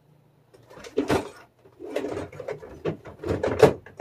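A run of knocks, clacks and rustling: someone moving about and handling things close by.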